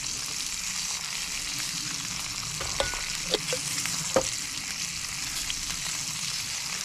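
Steak frying in butter in a cast-iron skillet, a steady sizzle, with a few sharp clicks about three to four seconds in.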